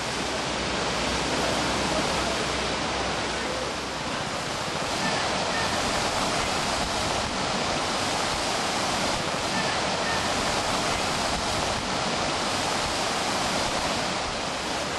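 Fast-flowing floodwater rushing and churning along a village street: a steady, loud rush of water.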